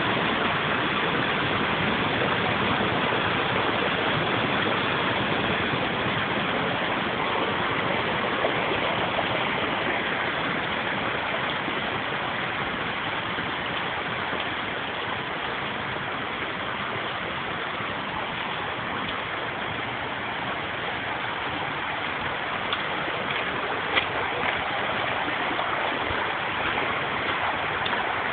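Storm runoff rushing across the ground in a heavy rain: a steady, loud rush of flowing water.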